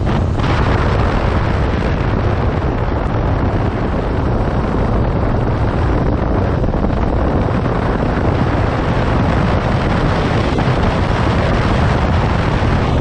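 Heavy wind rushing over the microphone on a moving motorcycle, a 2015 Yamaha FZ6R, with road and engine noise underneath. It stays steady throughout.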